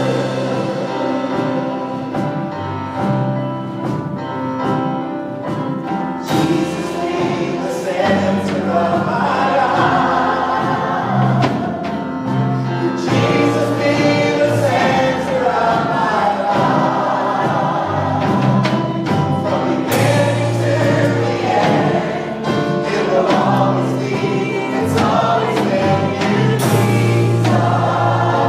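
Live gospel worship music: a band with drum kit and keyboard playing under a group of voices singing together, with steady drum and cymbal beats and a held bass line.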